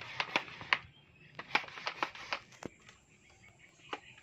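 Irregular light clicks and taps, with one sharper knock a little past halfway, as of objects being handled.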